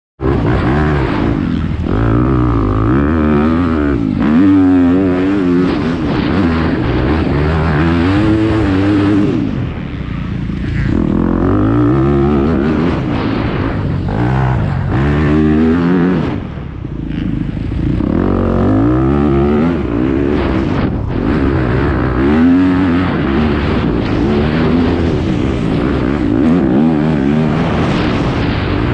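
Dirt bike engine under hard racing throttle, its pitch repeatedly climbing as it revs and falling back as the rider shifts or rolls off for turns. The throttle closes briefly about ten seconds in and again about sixteen seconds in, then the engine pulls hard again.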